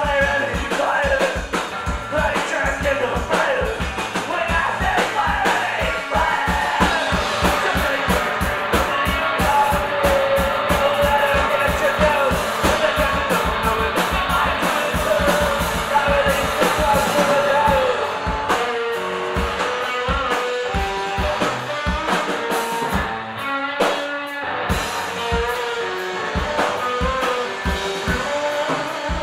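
Punk rock band playing live: distorted electric guitar, a fast-hit drum kit and sung vocals near the start. Partway through, the drumming thins and the guitar picks out separate notes, with a short break in the cymbals before the drums come back in.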